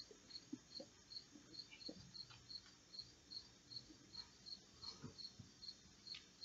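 Faint, steady chirping of a cricket, about two to three evenly spaced chirps a second, over near silence with a few soft taps.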